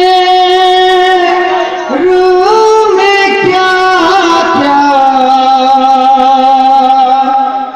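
Devotional chant singing with music: a voice holding long, drawn-out notes that slide from one pitch to the next, with a short break about two seconds in.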